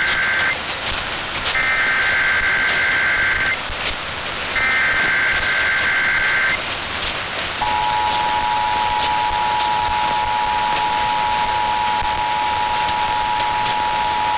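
Emergency Alert System header: the end of one burst and two more bursts of warbling digital data tones, then the steady two-tone attention signal from about halfway through, all over constant radio static hiss.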